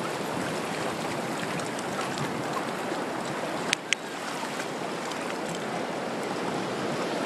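Ocean surf washing in over wet sand: a steady rush of foaming water, with two sharp clicks in quick succession about halfway through.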